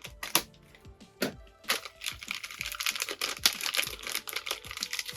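Small plastic kit parts being handled: irregular light clicks and taps, with some crinkling of a plastic parts bag.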